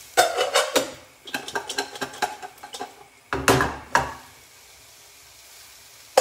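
Snow peas being shaken in a lidded frying pan: the pan and its metal lid rattle and clatter, with a run of clicking knocks, then the pan is set back down on the gas hob with a heavier knock. A faint sizzle carries on underneath, and a single sharp metal clank comes near the end.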